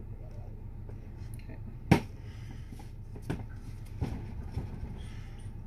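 One loud, sharp knock about two seconds in, then two lighter knocks and a few small clicks, as a plastic jug of soap batter is handled and set down on a stainless-steel bench.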